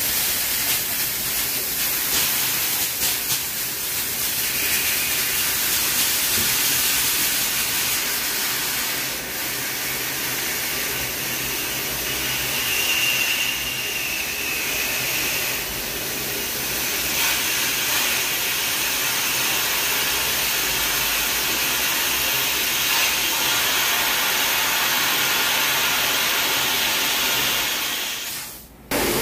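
Compressed air hissing steadily as it is blown through a car's water-filled cooling system, forcing the flush water out in a spray. It drops away suddenly just before the end.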